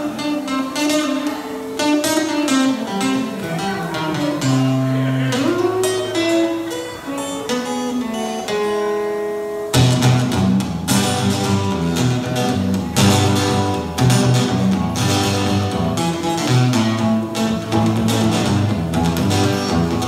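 Acoustic guitar playing an instrumental blues opening with no singing: separate picked notes, one note sliding up in pitch about five seconds in, then from about ten seconds a fuller, louder pattern with bass notes underneath.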